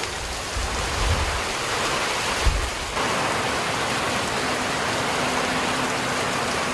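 Heavy rain pouring steadily, with a few low rumbles in the first three seconds.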